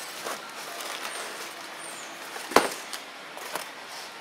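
Quiet rustling of a cardboard box and its packing as a harmonic balancer is worked out of it by gloved hands, with one sharp knock about two and a half seconds in.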